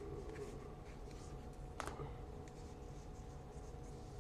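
Trading cards being handled and flipped through, faint light paper ticks with one sharper snap a little under two seconds in, over a steady low hum.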